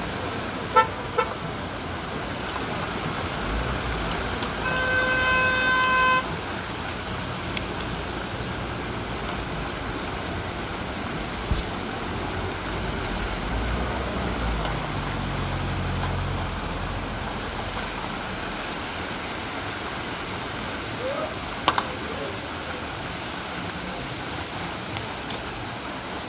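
A large batch of breaded chicken deep-frying in a wide steel tray of oil, sizzling steadily, with a metal spatula clinking against the pan a few times as the pieces are turned. A car horn sounds once for about a second and a half, about five seconds in, and a vehicle engine rumbles past in the middle.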